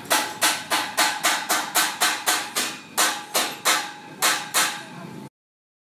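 A hammer striking metal in quick, regular blows, about three or four a second, each with a short metallic ring. The hammering cuts off suddenly about five seconds in.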